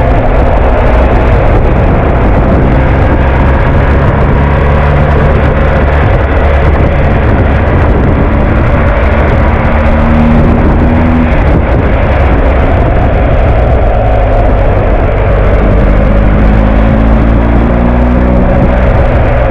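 BMW R 1250 GS Adventure's boxer-twin engine running under way on a Rapid Bike fuel-injection module, its note rising twice as the bike picks up speed, under heavy wind and road noise.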